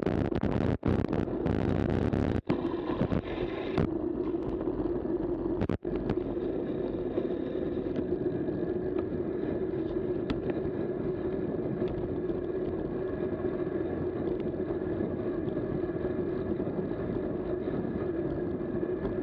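Steady road and wind noise from a cyclocross bike rolling along tarmac at about 12 to 18 mph, with a steady low hum throughout. The sound cuts out briefly three times in the first six seconds.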